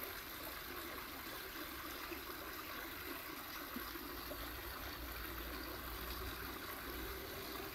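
Small shallow stream trickling steadily over stones and leaves.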